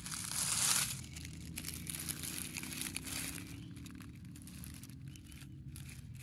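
Dry leaf litter rustling and crackling on the forest floor, with many small crisp crackles, loudest in the first second.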